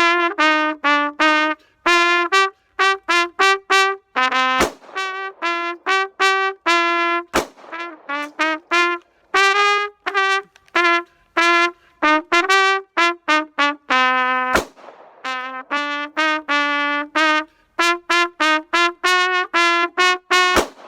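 A trumpet plays a fast melody of short, detached notes. Four single sharp cracks, like gunshots, cut through it about four, seven, fourteen and twenty seconds in.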